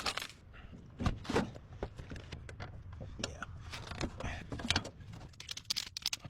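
Irregular knocks, scrapes and rattles of hands working on metal parts.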